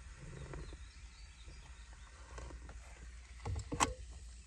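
A sip drunk from a red plastic cup full of ice, then a few sharp clicks about three and a half seconds in as the ice knocks in the cup, over a steady low background rumble.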